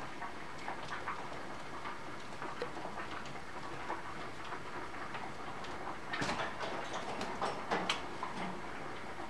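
Budgerigars bathing: small splashes and wing flutters in water, with louder bursts of splashing about six seconds in and again near eight seconds.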